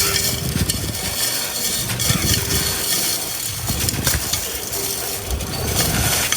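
Hands crumbling a dried, hard-set sand-and-cement texture shape, a steady gritty crunching full of small cracks and crumbles.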